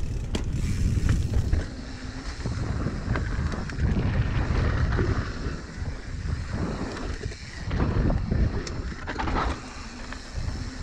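Wind rushing over the camera microphone and the rumble of a mountain bike rolling fast down a dirt trail, swelling and easing in gusts.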